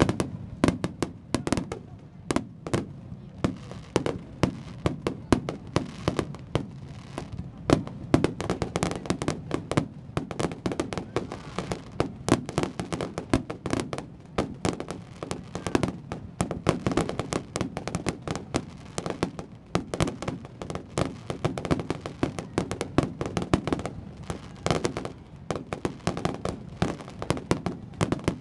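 Aerial fireworks going off in a dense barrage: many sharp bangs a second, some louder than the rest, over continuous crackling.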